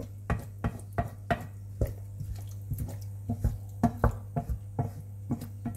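Wooden spatula stirring oats and vegetables in water in a nonstick frying pan, knocking and scraping against the pan about three times a second, over a steady low hum.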